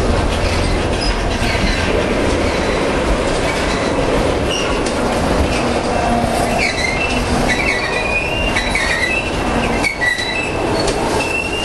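Freight train cars, covered hoppers and tank cars, rolling past close by with a steady noise of wheels on rail. From about halfway through, high-pitched wheel squeal comes and goes over it.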